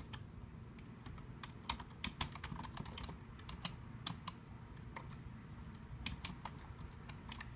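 Computer keyboard keys clicking as a command is typed, in irregular single keystrokes about two or three a second.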